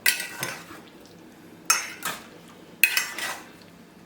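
A spoon stirring and tossing chopped salad in a bowl, scraping and clinking against the bowl in several separate strokes about a second apart.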